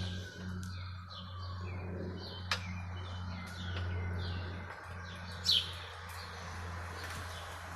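Small birds chirping repeatedly in short, falling chirps, one louder chirp about five and a half seconds in, over a steady low hum.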